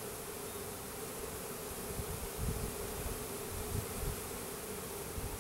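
A mass of Russian-Carniolan hybrid honey bees buzzing steadily in one continuous hum, with a few dull low thumps about two and a half and four seconds in.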